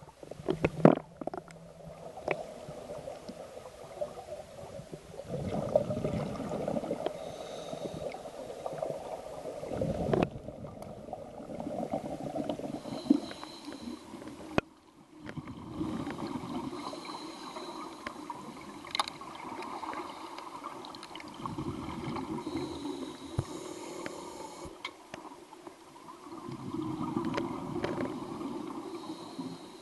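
Underwater audio of scuba divers breathing through their regulators: exhaled bubbles gurgle and rush in repeated surges a few seconds apart.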